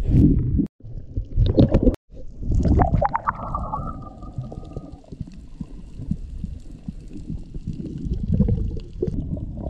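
Muffled underwater rumble with gurgling of water and bubbles, as heard by a submerged camera. The sound drops out completely twice in the first two seconds, and a thin steady whine runs for about a second and a half in the middle.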